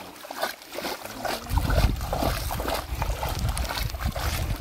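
Round-framed mesh hand scoop net pushed through shallow muddy paddy water, with sloshing and trickling water. A low rumble comes in about a second and a half in.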